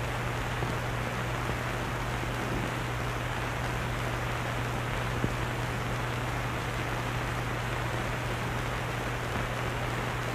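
Steady hiss and low hum of an old film soundtrack, with a single faint click about five seconds in.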